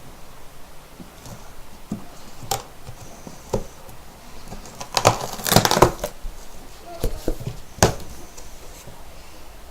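Cardboard box being cut open with a knife and handled: scattered clicks and scrapes, with a louder stretch of rough scraping about halfway through and a few sharp knocks after it.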